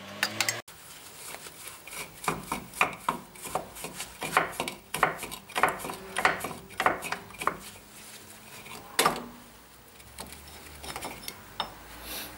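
Hand tools clinking and knocking against the metal backing plate and wheel cylinder of a rear drum brake, a run of short irregular knocks, then one louder knock about nine seconds in.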